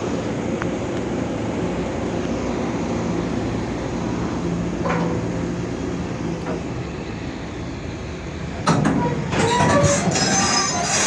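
Excavator's diesel engine running steadily, then about nine seconds in a loud metallic squealing and clanking starts as the steel tracks begin to move.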